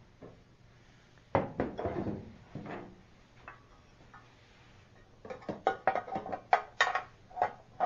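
Rummaging among metal tools and parts on a workbench: a clunk about one and a half seconds in, then a quick run of clinks and knocks over the last few seconds.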